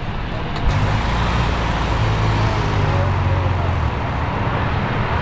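Road traffic noise, with a vehicle engine running close by as a low hum that stops about four seconds in.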